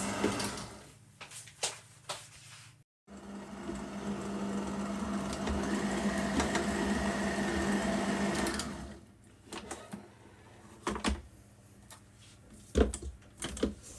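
Electric mixer motor running steadily as it beats cake batter, cutting out briefly about three seconds in, then stopping about nine seconds in. A few light knocks follow.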